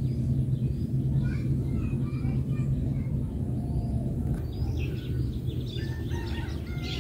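Birds chirping in short calls, with a few chicken clucks near the end, over a steady low hum.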